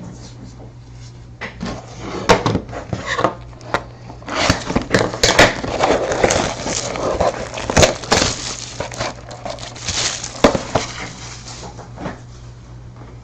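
A trading-card hobby box and its packaging being unwrapped and handled: crinkling and tearing of wrapper with quick crackles and clicks, busiest in the middle. A steady low electrical hum sits underneath.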